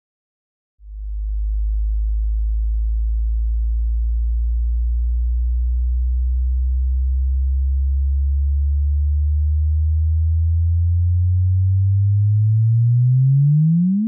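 The gravitational-wave chirp of two neutron stars spiralling together (the GW170817 merger), turned into sound: a low tone starts about a second in and rises slowly in pitch. Near the end it sweeps quickly higher and stops abruptly at the moment of merger.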